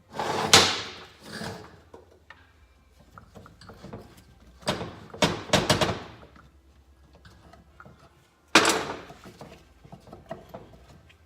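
Clunks and knocks of a Kawasaki KE100 engine's right-hand crankcase cover being worked loose and pulled off. There is one group of knocks near the start, a quick run of them about halfway through, and a single hard clunk late on.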